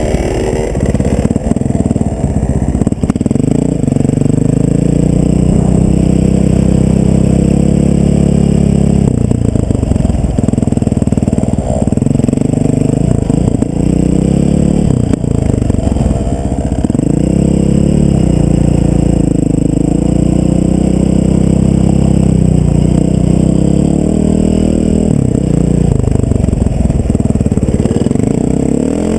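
KTM 450 EXC four-stroke single-cylinder dirt bike engine, heard close up under load, its revs rising and dropping again and again as the throttle opens and closes.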